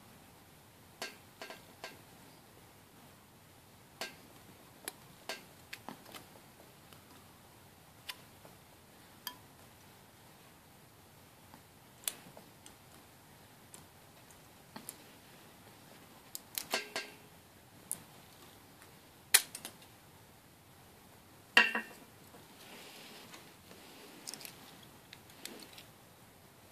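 Scattered sharp metallic clicks and clacks of a laminated steel padlock being handled while aluminium-can shims are worked down beside its shackle, shimming the lock open. The clicks come irregularly, bunch into a quick rattle about two-thirds of the way through, and the loudest two clacks come after that.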